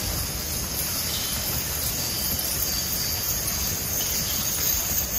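Six-horse hitch of Clydesdales trotting past with a wagon on soft arena dirt: dull hoofbeats and harness and wagon rattle, growing a little louder as the team comes close. A steady high-pitched whine runs under it.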